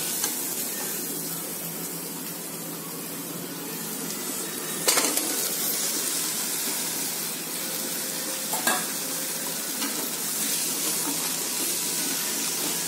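Shallots sizzling steadily in hot oil in an aluminium kadai, with a steel spatula scraping and clinking against the pan. About five seconds in there is a sharp clatter as cut drumstick pieces are tipped into the pan, then more stirring with another clink near the end.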